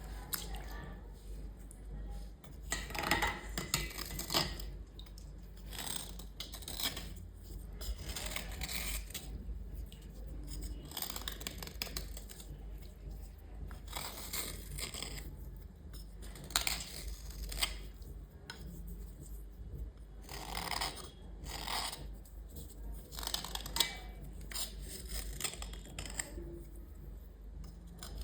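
Irregular scraping and scrubbing strokes on small hard items as grime is cleaned off them, some strokes louder than others.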